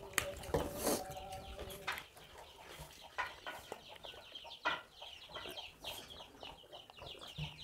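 A chicken clucking, with a quick run of short, high calls through the second half, and a few scattered soft knocks.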